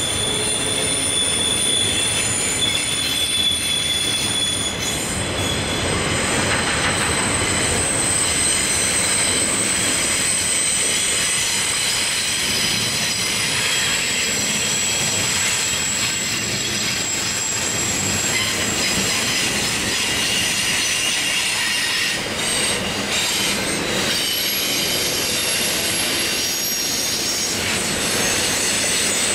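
Double-stack intermodal container train rolling past on a curve: a steady rumble of steel wheels on rail, with long high-pitched squeals from the wheel flanges that hold steady tones and shift pitch now and then.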